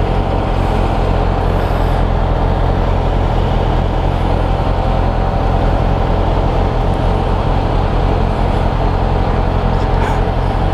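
Suzuki Bandit motorcycle's inline-four engine idling steadily at constant revs.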